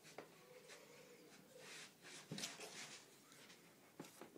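Faint rustling and a few soft knocks from movement on a carpeted floor, with a louder hissing rustle about two seconds in.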